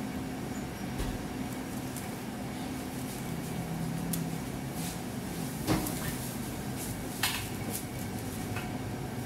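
A pizza slice handled in paper wrapping and a paper napkin: a few light knocks and paper crinkles, the two sharpest in the second half, over a steady low machine hum.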